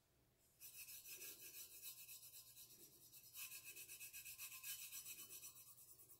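Fingertip rubbing over the stainless steel tumbler, working rust-effect colour onto its gold-leafed surface: a faint, fast, scratchy rubbing that starts about half a second in.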